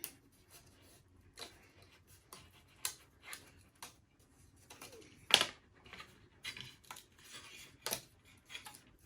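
Small clicks and snaps of thin wooden model pieces being pushed out of their wooden sheet and handled, with one sharper snap about five and a half seconds in.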